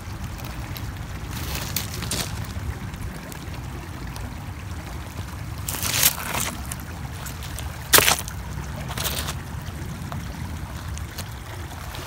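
Footsteps and handling on dry creek gravel: scattered crunches and sharp rock-on-rock clicks, the loudest about six and eight seconds in, over a steady low rumble.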